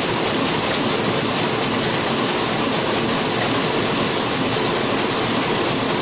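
A Heidelberg single-colour sheet-fed offset printing press running, its rollers and cylinders turning with a loud, steady mechanical noise that does not change.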